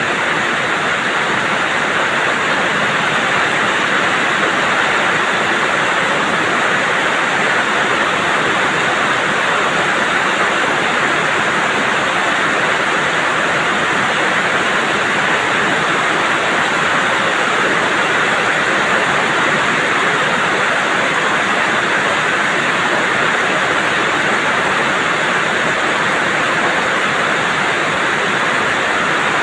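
Heavy rain falling steadily: a dense, even hiss of water with no breaks or separate drops standing out.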